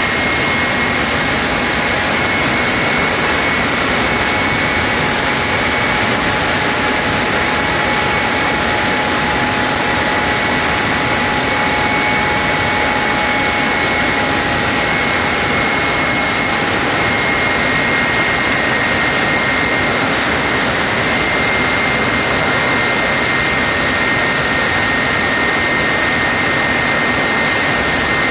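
Rolls-Royce/Snecma Olympus 593, Concorde's turbojet, running steadily on a ground test rig: a loud, even rush of jet noise with a steady high whine.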